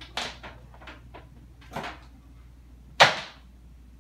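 Three short clunks and knocks of objects being handled, the third, about three seconds in, the loudest, with a brief ring after it. A low steady hum runs underneath.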